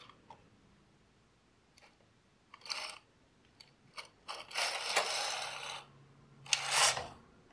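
Brother KA-8210 intarsia carriage being pushed along the metal needle bed of a Brother knitting machine to knit a row. A few light clicks come first, then about a second of steady mechanical clatter as it slides across the needles, and another short burst near the end.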